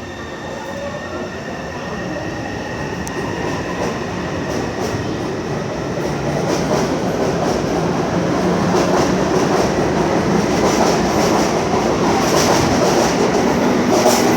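Taipei Metro C301 train with refitted propulsion pulling away. Its traction motors whine, rising in pitch, and the running noise and wheel clatter grow steadily louder as it gathers speed.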